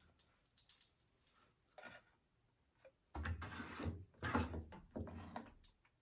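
Handling noise at a washing machine's drain filter: a few faint clicks, then, from about three seconds in, a couple of seconds of rustling and scraping.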